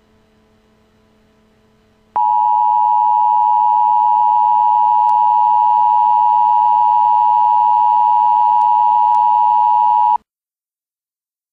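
Emergency Alert System attention signal: the steady two-tone alert tone starts abruptly about two seconds in, holds unchanged for about eight seconds and cuts off suddenly.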